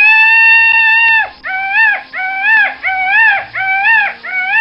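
Peacock calling loudly: one long call of about a second and a half, then five shorter calls in quick succession, each rising and falling in pitch.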